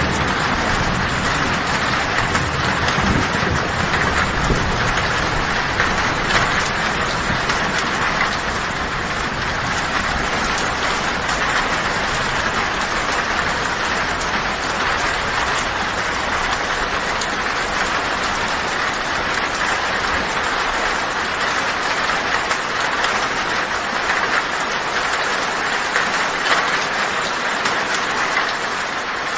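Heavy rain drumming steadily on a tin roof, a dense, even hiss. A low thunder rumble underneath fades out within the first several seconds.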